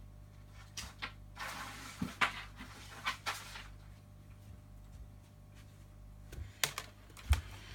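Handling noise on a workbench: scattered clicks and knocks with two short bursts of rustling, over a steady low mains hum.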